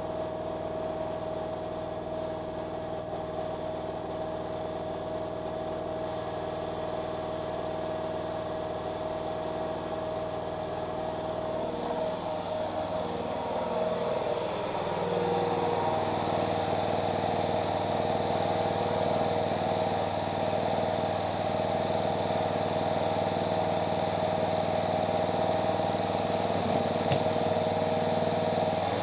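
Petrol walk-behind rotary lawn mower engine running steadily, getting louder about halfway through as the mower is worked across the grass.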